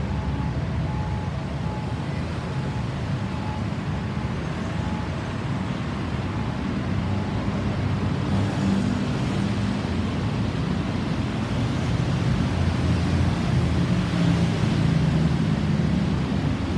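Road traffic: vehicle engines running with a steady low rumble and road noise.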